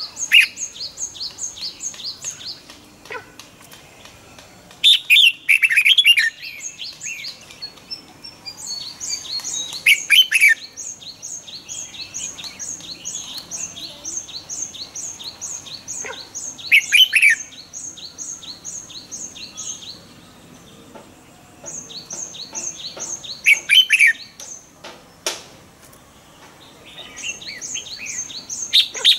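Red-whiskered bulbul singing loud, short warbling phrases, five in all, spaced about six or seven seconds apart. Under them runs a fast series of thin, high chirps, about five a second, that comes and goes in long stretches.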